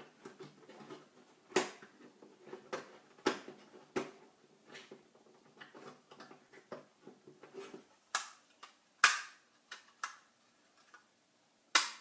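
Metal laptop drive sled being pressed onto a Crucial MX100 SSD by hand: a run of small clicks and taps, then three sharper clicks over the last few seconds as the sled's tabs pop into the drive's screw holes.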